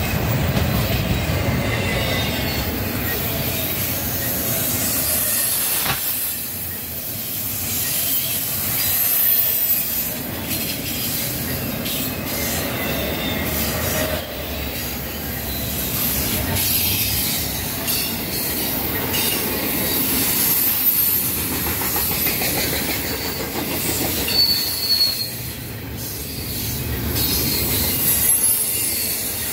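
Freight train of double-stack container well cars rolling past: a steady rumble of steel wheels on rail with high-pitched wheel squeal, and a few sharp clicks and clanks from the wheels and couplings.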